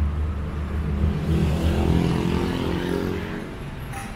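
Motor vehicle engine running close by: a low rumble that fades after about a second and a half, then an engine note rising in pitch as a vehicle accelerates, over street traffic noise.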